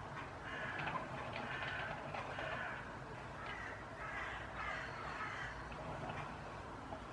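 Repeated raspy scraping strokes, each under a second, from a plastic scraper smoothing the buttercream coat on a cake as it turns on a cake turntable.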